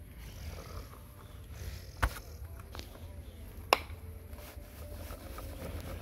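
Plastic toy dump truck handled in sand, with its bed being tipped up. Two sharp clicks, about two seconds and three and a half seconds in, over a low steady rumble.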